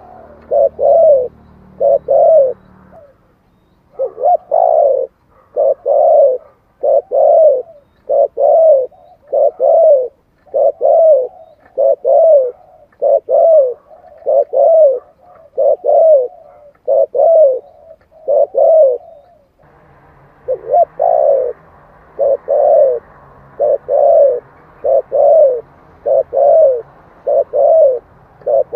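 Spotted dove cooing over and over, short low coos of about one to two a second, often in pairs, with a brief pause about three seconds in.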